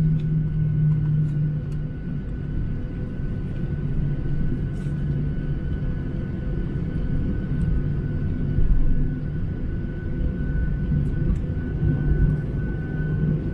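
Cabin noise of a Boeing 737-800 heard from a window seat over the wing while taxiing onto the runway. Its CFM56-7B turbofan engines run with a steady hum, over a low rumble and a faint thin whine.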